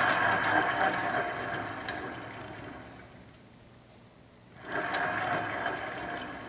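Empty needle-bearing sleeve of a Pendlay bearing barbell spun by hand, whirring and slowly fading as it coasts down. It is spun a second time about three-quarters of the way through, whirring up again and fading.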